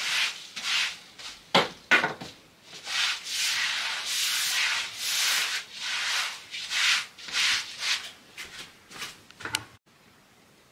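Repeated rubbing and scraping strokes on a wooden surface, about one or two a second, with a couple of sharp knocks among them; the sound cuts off suddenly near the end.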